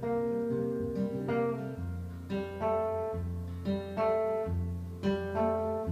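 Acoustic guitar playing a picked chord pattern, its notes ringing on over a sustained bass note.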